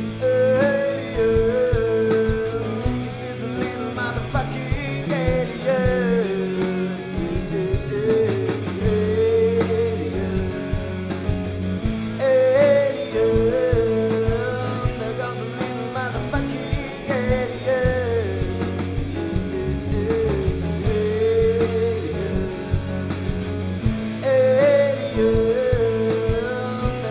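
Space rock song: electric guitars, bass and drums under a sung melody that rises and falls in repeated phrases every few seconds.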